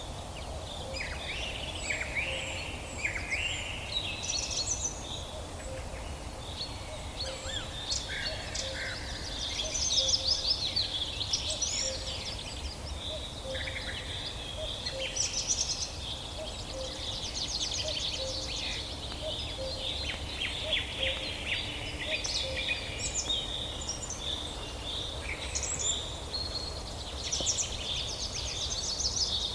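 Many songbirds singing and calling together: overlapping chirps, whistled glides and fast trills, over a steady low rumble. A faint low note repeats steadily underneath for much of the time.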